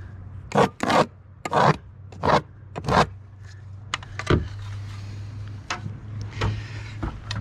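Short, rough scraping and rubbing strokes against wood, about six of them in quick, uneven succession, then fewer and fainter. A steady low hum comes in about three seconds in.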